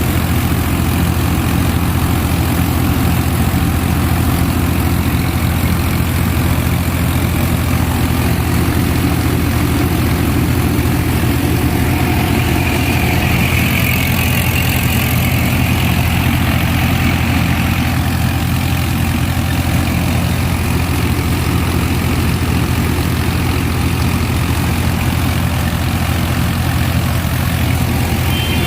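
Tractor-mounted combine harvester running: a steady diesel engine drone from the Swaraj 963 tractor driving the Gill double-rotor cutting and threshing machine.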